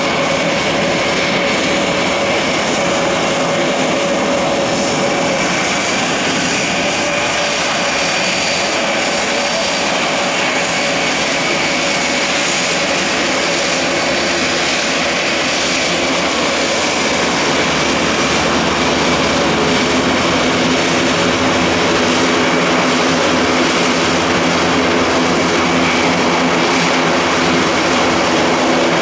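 Propeller aircraft taxiing with engines running steadily, with a high whine in the first half and a deep propeller hum that grows stronger in the second half as the sound gets slightly louder.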